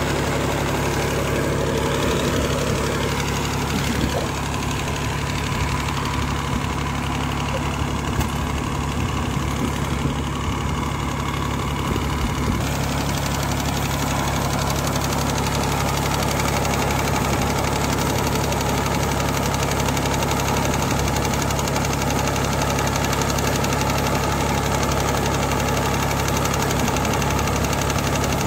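Tractor engine idling steadily, with a slight change in tone about twelve seconds in.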